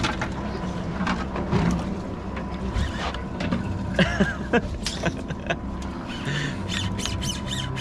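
Fishing boat's engine running with a steady low hum, with scattered clicks and knocks and a quick run of clicks near the end.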